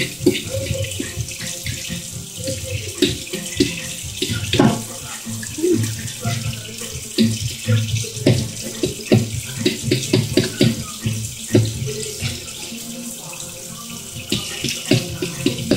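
Avocados being crushed in a bowl for guacamole: irregular wet squelches and knocks, several a second.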